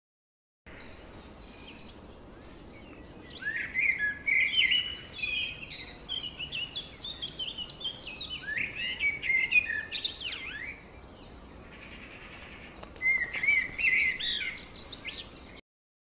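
A songbird singing a fast, varied song of sharp repeated notes and whistled sweeps, with a lull of about two seconds near the end before a last burst of song.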